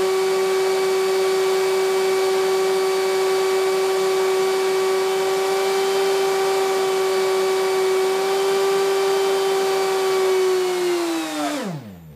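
3D-printed centrifugal compressor, its small impeller spun by a draft-inducer motor on a variable frequency drive, running at high speed with a steady whine over a rush of air. Near the end the whine falls steeply in pitch and dies away as the impeller spins down and stops.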